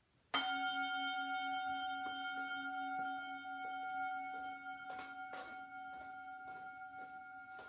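A singing bowl struck once, ringing on in several unevenly spaced tones that slowly fade, the lowest note wobbling slowly. Soft steps on a wooden floor are heard from about two seconds in.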